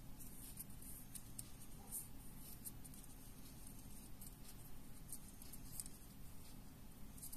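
Faint scattered ticks and scratchy rustles of fingers handling a thin thread and small beads, over a steady low room hum.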